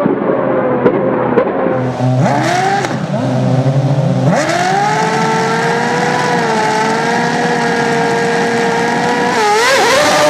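Honda Grom 125cc single-cylinder engine under way at highway speed, with wind noise. For the first few seconds the engine note wavers through throttle changes, with two sharp knocks. It then rises and holds steady at high revs, and near the end it dips and climbs again briefly.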